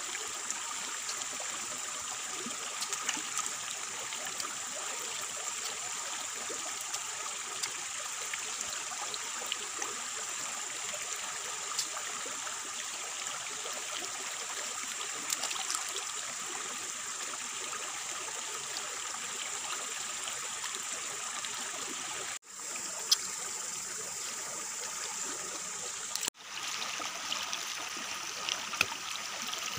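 A stream running with a steady, even rushing noise and scattered faint clicks over it. The sound drops out for an instant twice in the last eight seconds.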